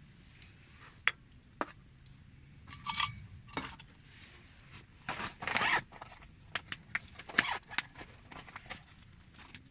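Small camp cooking gear being handled: scattered sharp clicks and clinks and short scrapes, the loudest a longer rasping scrape about five seconds in.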